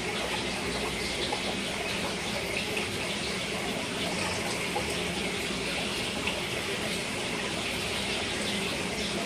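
Aquarium filter water running steadily into the tank, a constant even rush and trickle of water.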